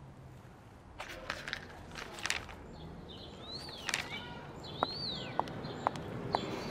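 Footsteps on a stone-paved alley, evenly spaced short sharp steps about twice a second in the second half, with a few scattered clicks and two bird chirps before them.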